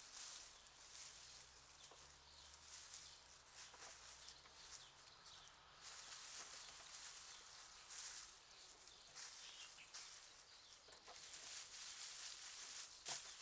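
Quiet outdoor ambience: a soft hiss with scattered light ticks and a few faint bird chirps.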